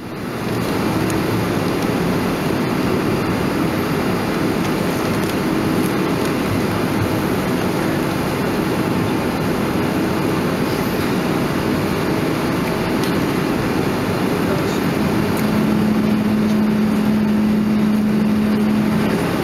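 Steady cabin rumble inside a Boeing 737-500 beside the wing, its CFM56-3 turbofans running at low power as the airliner rolls along the ground. A steady low hum joins the noise about fifteen seconds in and holds until near the end.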